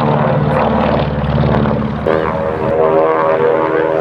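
Propeller airplane engine running loud and steady overhead, its note shifting about halfway through.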